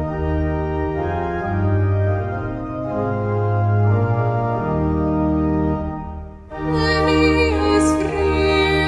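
Pipe organ playing the introduction to a hymn in held, slowly changing chords. After a short break about six and a half seconds in, singing of the hymn begins over the organ accompaniment.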